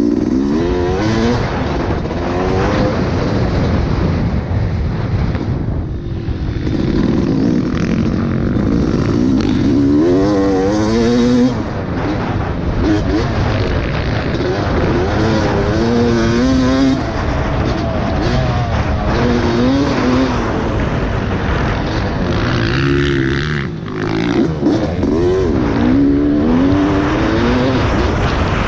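Yamaha YZ250 two-stroke dirt bike engine being ridden round a motocross track, its pitch climbing and dropping over and over as the throttle is opened and rolled off through the turns and jumps.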